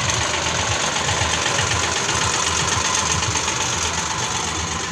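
An engine running steadily at idle, a low even throb under a constant hiss.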